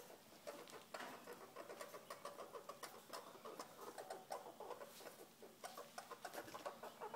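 Faint, quick squeaks from a pair of mating squirrels, several a second, with soft clicks in between.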